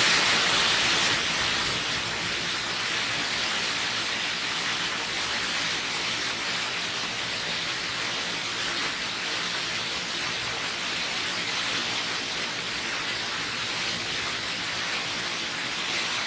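Waterfall: the steady rush of falling water, slightly louder in the first couple of seconds and then even.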